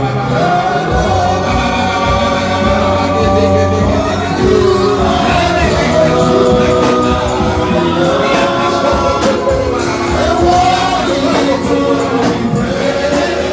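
Gospel music with a group of voices singing over a steady accompaniment.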